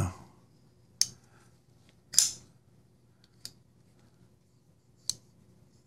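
Oz Machine Roosevelt titanium framelock flipper knife worked open and shut by hand: four sharp metallic clicks, a second or more apart and the loudest near the middle, as the blade snaps through its detent. The blade pivots on caged ceramic ball bearings.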